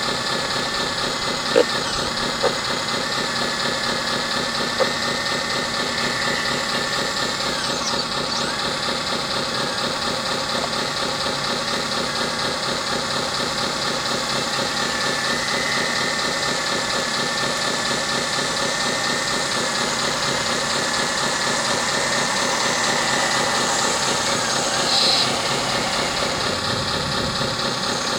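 Hydraulic model CAT excavator running as it digs and swings: a steady hum with a wavering high whine, and three sharp clicks in the first five seconds.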